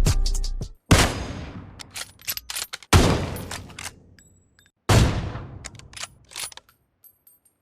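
Stock gunshot sound effects: three loud shots about two seconds apart, each with a long echoing tail, with small metallic clicks between them.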